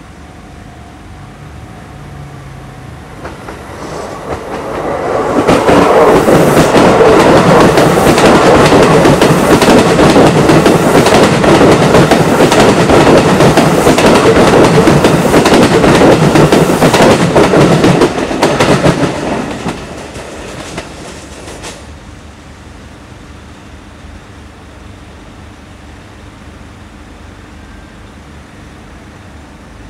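Shin-Keisei Electric Railway commuter train passing close by, its wheels clacking over the rail joints. It builds up over a couple of seconds, stays loud for about twelve seconds, then fades away over about four seconds.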